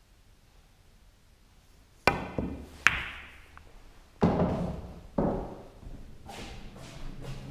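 Pool shot: the cue tip strikes the cue ball about two seconds in, followed under a second later by a sharp ringing click of ball hitting ball, then two duller knocks as the balls travel around the table.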